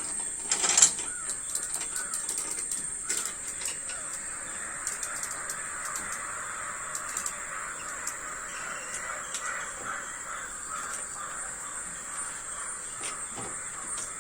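Light metallic clicks and rattles of a bicycle chain being handled and fed onto the sprocket, over a steady high-pitched whine, with a louder clatter about a second in.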